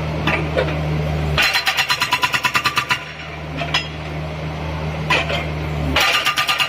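Hydraulic breaker on a Kubota U50 excavator hammering in fast, even blows, about ten a second, for a second and a half. It stops, leaving the excavator's engine running steadily with a few short knocks, and starts hammering again near the end.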